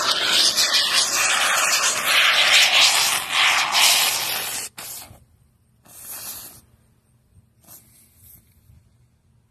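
Can of expanding spray foam insulation hissing steadily as foam is sprayed out. It cuts off suddenly about halfway through, then gives two short, fainter spurts.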